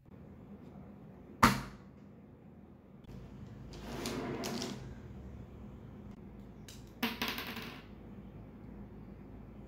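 Clicks and taps of plastic felt-tip markers being handled on a tabletop over a steady low hum. The sharpest click comes about one and a half seconds in, followed by a rustling patch around four seconds in and another quick cluster of clicks near seven seconds.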